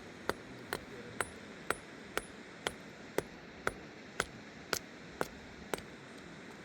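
Steady, evenly spaced taps of a hand tool on hard material, about two strikes a second, sharp and slightly ringing; they stop about a second before the end.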